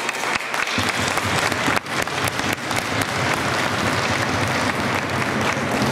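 Spectators applauding in an ice rink: dense, steady clapping that fills in about a second in.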